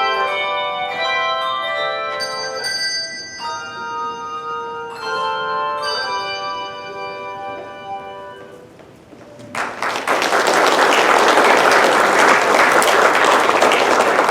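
Handbell choir ringing its closing chords, which die away about nine seconds in. Then the congregation applauds, louder than the bells.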